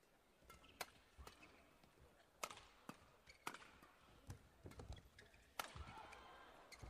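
Badminton rackets striking a shuttlecock back and forth in a fast doubles rally: a string of sharp hits, roughly one every half second, with shoes squeaking briefly on the court.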